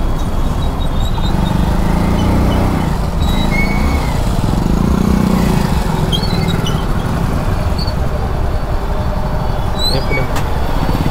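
Motorbike running steadily while riding through road traffic.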